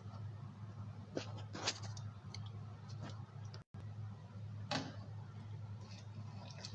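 A few sharp light clicks and knocks, spaced irregularly, over a steady low hum; the sound cuts out completely for an instant about halfway through.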